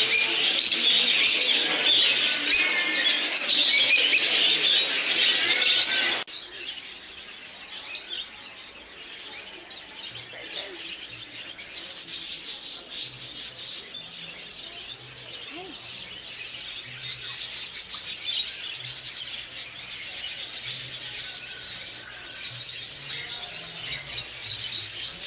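Many small birds chirping and tweeting at once in a dense, loud chorus. About six seconds in it cuts abruptly to a quieter stretch where high chirping goes on over a low hum.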